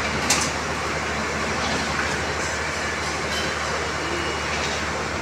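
Electric rebar bending machine running, its motor and gearbox humming steadily as the turntable bends a bundle of steel bars. A sharp metal clank comes about a third of a second in, with lighter clicks later.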